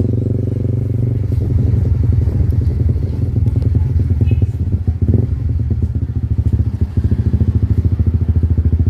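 Motorcycle engine running at low road speed, its exhaust pulsing rapidly, settling into an even idle near the end as the bike stops.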